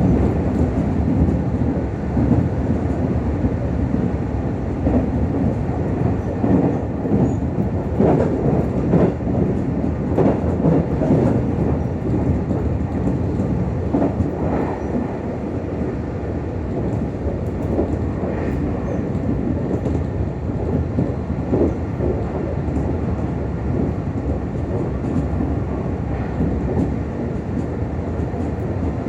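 Meitetsu 6000 series electric train running at speed, heard from inside the passenger car: a steady rumble of wheels on rail with a few scattered knocks as the wheels cross rail joints.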